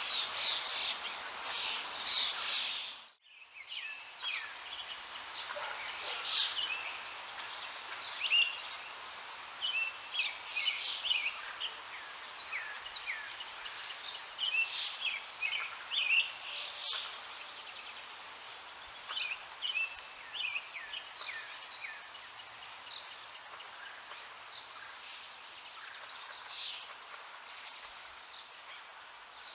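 Many songbirds chirping and singing over a steady hiss of running water. The background cuts out abruptly about three seconds in and returns quieter.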